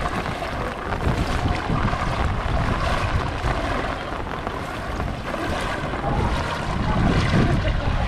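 Floodwater sloshing and splashing as someone wades through it, with wind buffeting the microphone as a low rumble.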